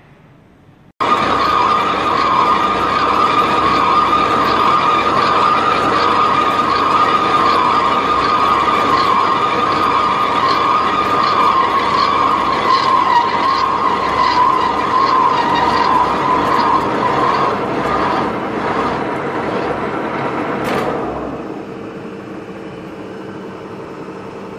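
Dean Smith & Grace Type 21 lathe cutting a grade 5 titanium bar: the spinning chuck and cutting tool make a loud, steady machining noise with a strong steady tone through it. It starts abruptly about a second in and falls to a quieter run near the end.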